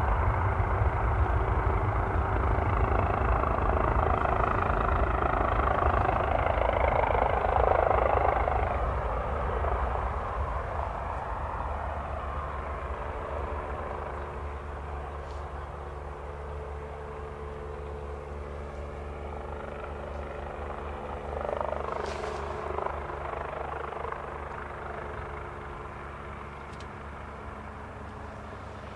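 Airbus A320 jet engines roaring as the airliner slows on a wet runway after landing, with the roar easing off about nine or ten seconds in to a quieter steady engine hum as it rolls on. A brief louder swell comes about two-thirds of the way through.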